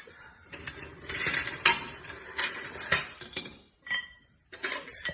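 Metal tools or equipment being handled and set about: a run of irregular knocks, clinks and scrapes, with a brief metallic ring a little before the four-second mark.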